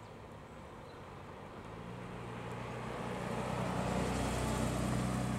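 Porsche 996 Turbo's twin-turbocharged flat-six driving past at low speed, its engine note growing steadily louder as the car approaches and passes close by.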